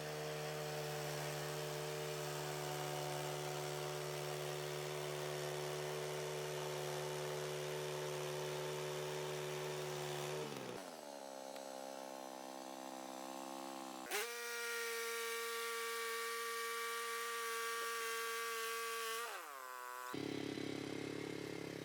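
The engine of a Woodland Mills HM126 portable band sawmill running at a steady speed during a cut. Its pitch changes abruptly a few times: it drops about eleven seconds in, jumps after a click around fourteen seconds, and shifts again near the end.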